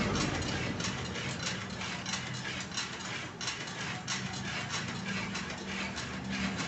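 The planting mechanism of a homemade rice transplanter running, its moving arms and linkages giving repeated clicks and clatter a few times a second over a low steady hum.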